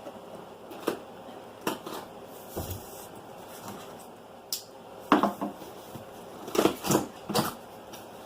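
A cardboard box and its packaging being opened and handled: scattered knocks and rustles, with a cluster of louder knocks about five to seven and a half seconds in.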